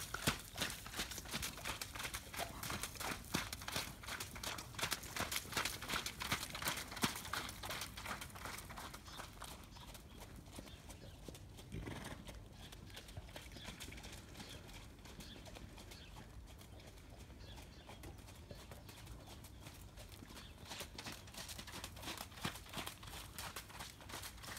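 Hoofbeats of a Connemara mare under a rider, a steady run of footfalls. They are louder as she passes close, fainter while she is on the far side, and grow louder again near the end.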